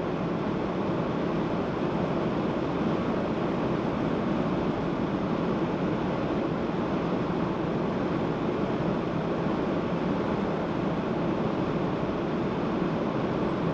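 Steady noise of a car being driven along a city road, with tyres on pavement and the running engine blended into one even sound.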